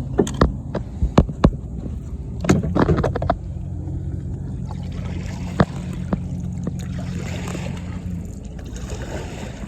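Water sloshing and gurgling against a kayak on choppy water, with a quick run of knocks during the first three seconds or so, then a steady low drone.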